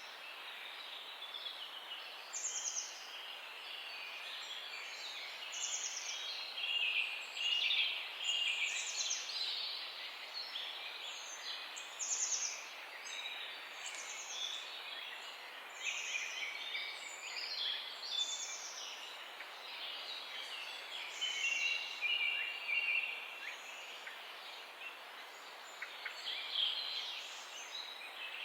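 Morning chorus of several songbirds chirping and singing together, with a high call every second or two over a steady hiss.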